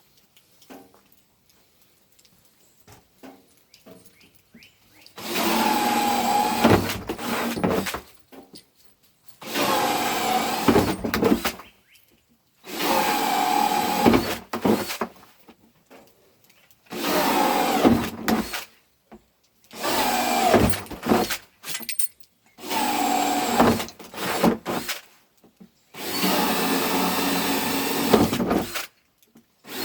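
Power drill run in about seven bursts of two to three seconds each, its whine sagging in pitch under load during each run. A few light clicks come before the first burst.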